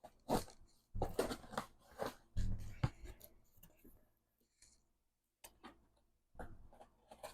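A cardboard shipping box being opened and its packed contents handled: irregular scrapes, rustles and clicks with a few dull thumps, and a short pause about halfway through.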